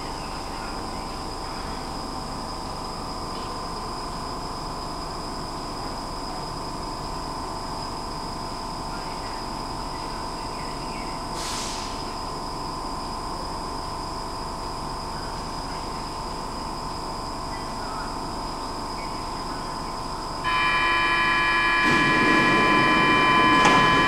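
Stockholm metro train standing at an underground platform with doors open: a steady electrical and ventilation hum. About twenty seconds in, a loud steady multi-tone signal switches on abruptly, and a rumble builds under it as the train gets ready to close its doors and leave.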